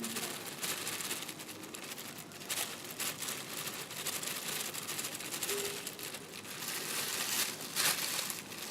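A flour bag crinkling and rustling in irregular bursts as flour is scooped and measured out.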